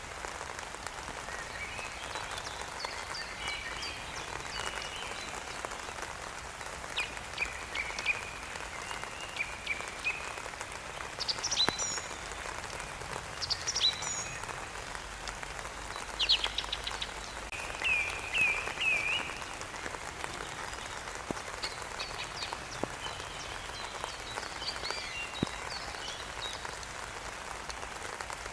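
Steady rain falling, with birds chirping and singing over it in short calls and trills, the loudest calls bunched in the middle.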